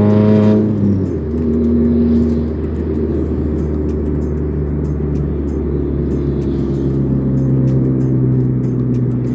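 A straight-piped Ford Fiesta Mk7 engine and exhaust heard from inside the cabin while driving. The engine note drops sharply about a second in, then climbs slowly as the car pulls again.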